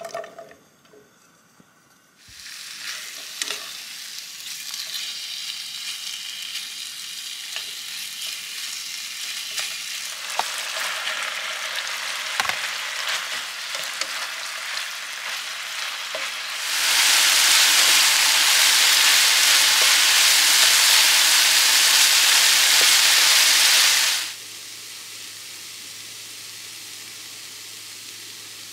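Meat frying in hot oil in a frying pan, sizzling from about two seconds in, with spatula stirring. Near the end the sizzle turns much louder and harsher for several seconds, then drops back to a quieter, steady sizzle.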